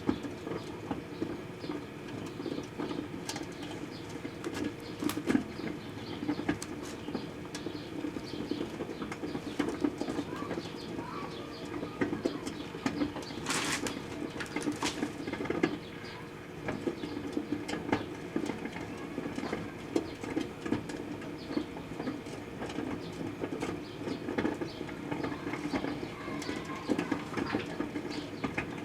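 Proctor-Silex microwave oven running with a steady hum, with many small irregular clicks and pops through it from the sugarcane heating inside.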